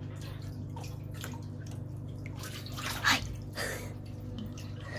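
Water sloshing and splashing in a hot tub as a child moves through it and surfaces, with two short splashes about three seconds in, over a steady low hum.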